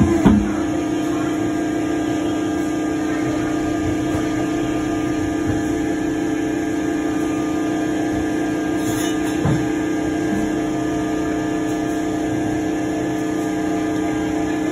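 Steady machine hum at a fixed pitch, with a short knock just after the start and a fainter knock about two-thirds of the way through.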